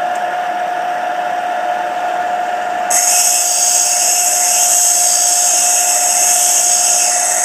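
Lincoln electric bench grinder running with a steady whine. About three seconds in, a tungsten electrode spun in a cordless drill is pressed against the diamond grinding wheel, adding a loud, high-pitched grinding hiss as its tip is sharpened to a point for TIG welding.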